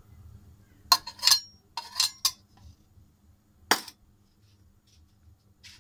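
A few sharp metal clinks and knocks from a steel oil container against a kadhai as more cooking oil is poured in and the container is put down. The loudest clinks come about a second in and around two seconds, with another knock near four seconds.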